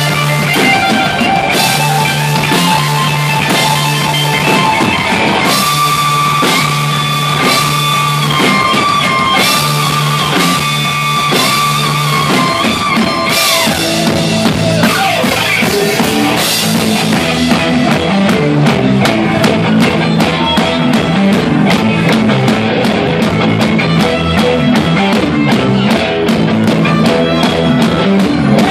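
Rock band playing live: electric guitars, bass and drum kit with a violin, and a tambourine held up and shaken. A long high note is held for about eight seconds before the riff changes.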